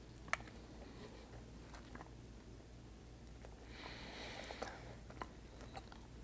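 A person biting into a chewy mango burrito candy, with a sharp click right at the start, then faint chewing ticks and a short sniff through the nose about four seconds in.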